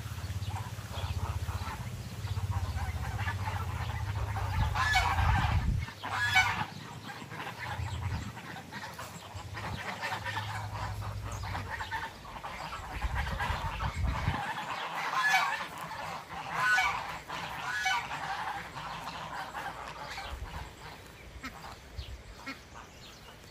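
A flock of domestic geese honking, with bunches of loud honks about five seconds in and again about fifteen to eighteen seconds in, and softer calls between. A low rumble runs under the first few seconds.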